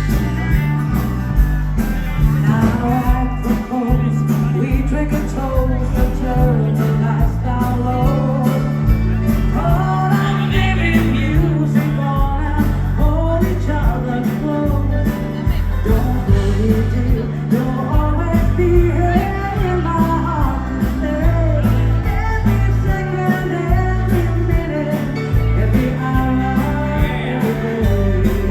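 Dance band playing a rock'n'roll-style song live, a singer over electric guitar, bass and drums with a steady beat.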